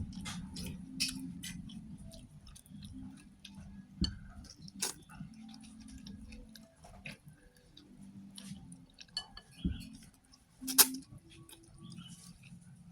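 Someone eating a bowl of noodle soup close to the microphone: chewing, with scattered small clicks and taps of utensils on the bowl and one louder sharp knock about eleven seconds in.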